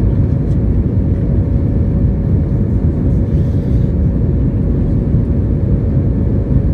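Cabin noise inside an Airbus A320 airborne after takeoff: the steady rumble of the jet engines and rushing air, with a thin steady hum held through it.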